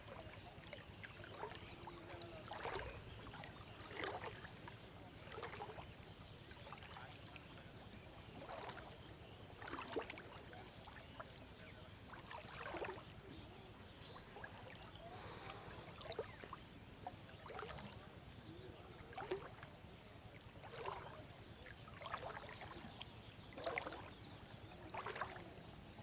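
Water sloshing and swishing as legs wade slowly through waist-deep pond water, one faint splashy stroke about every second and a half.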